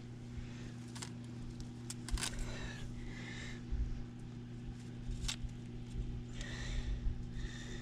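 Light clicks and metallic rattles of a galvanized wire-mesh minnow trap being handled and pulled apart, with rubbing and handling rumble, over a steady low hum. A few faint high chirps come in about three seconds in and again near the end.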